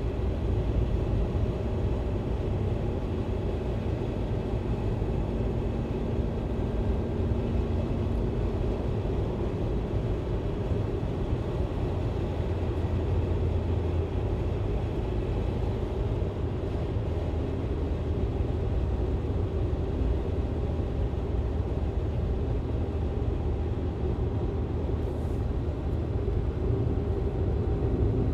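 Interior ambience of a car being driven: a steady low rumble of engine and road noise heard from inside the cabin, with no distinct events.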